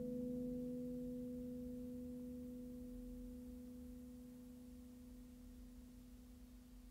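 Classical guitar's final chord ringing out and slowly fading away, with a low note and the note an octave above it lasting longest.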